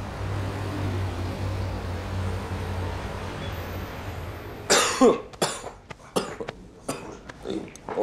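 A low steady hum, then about five seconds in an old man breaks into a fit of repeated coughing, several coughs in quick succession. It is a chronic cough that his family blames on the smoke and oil fumes of a restaurant kitchen.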